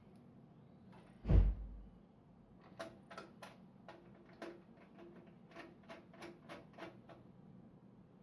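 A single heavy thump, then a run of light metallic clicks and ticks as screws are turned into the motherboard standoffs, done finger tight.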